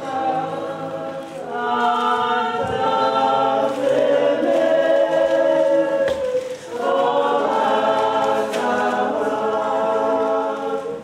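A group of women's voices singing together in long held notes, phrase after phrase, with a brief break about six seconds in.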